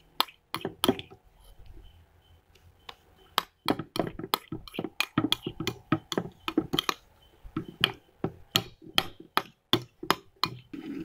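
A spoon clinking and tapping against a bowl while stirring a thickening, clumping slime mixture: irregular sharp knocks, bunched into two runs of quick strokes.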